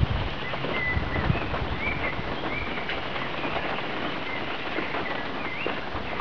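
A bird calling a string of short, high whistled notes, several with a quick upward flick, over a steady background hiss.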